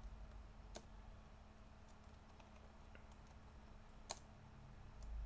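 Near silence with a few isolated clicks of someone working a computer, two sharper ones about three seconds apart, over a faint steady low hum.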